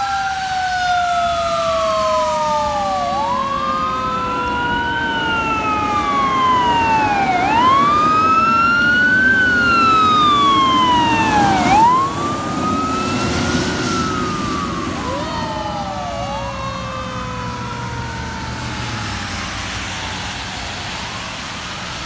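Fire engine siren wailing, its pitch rising and falling over and over, with a second, lower siren tone that slowly falls. The siren and the engine's road noise on the wet pavement grow loudest as it passes about halfway through, then fade as it drives away.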